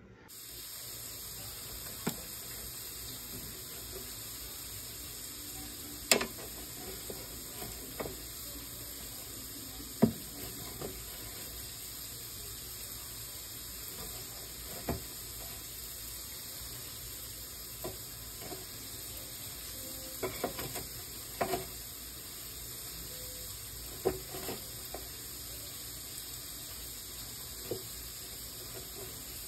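Breaded chicken tenders being laid one by one into a metal air fryer basket: irregular knocks and taps against the basket over a steady hiss.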